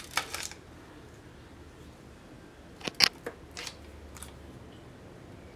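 A few light clicks and taps of a spoon against the pot while a spoonful of butter is dropped onto cooked sweet corn kernels. The sharpest tap comes about three seconds in.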